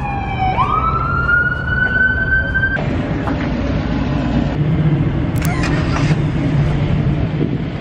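A siren wails, falling and then sweeping up and climbing slowly, for the first few seconds. After an abrupt change it gives way to a steady low vehicle rumble with street noise, and a couple of sharp clicks come about two-thirds of the way through.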